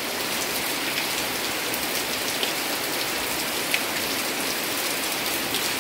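Steady rain falling on foliage and a clay-tile roof: an even hiss of rain with a few sharper drop taps.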